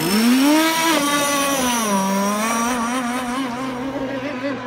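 Radio-controlled speedboat's motor running at speed across the water, a loud whine whose pitch rises, dips and climbs again as the boat changes throttle and passes.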